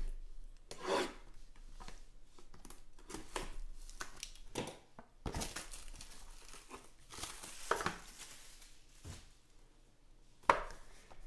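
Plastic shrink wrap on a trading-card hobby box being slit with a small blade and pulled off by hand: short scrapes and clicks, then crinkling of the film, with a sharper knock of the box being handled near the end.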